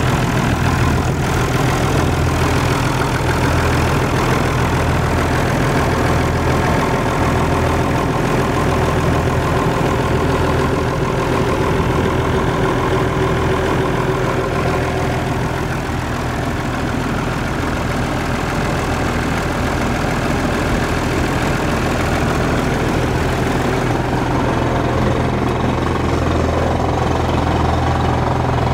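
Heavy engine of an old drilling rig outfit running steadily, a constant low hum with a slightly uneven pulse underneath.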